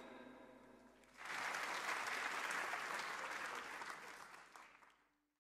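Audience applauding at the end of a sung nasheed: the last note dies away, the clapping starts about a second in, holds steady, then fades out near the end.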